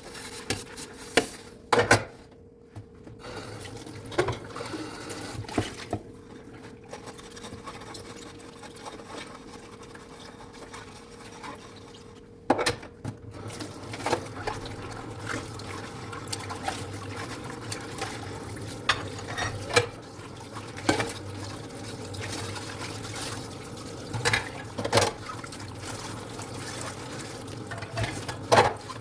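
Dishes being washed by hand at a sink: water running and splashing, with dishes clinking and knocking against each other and the sink every few seconds.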